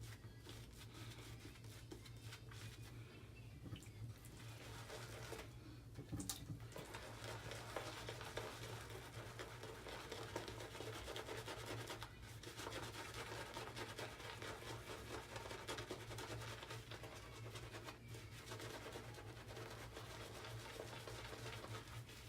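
Continuous soft scratching and rubbing of a wet shave on thick lathered two-day stubble, with a few brief pauses, over a low steady hum.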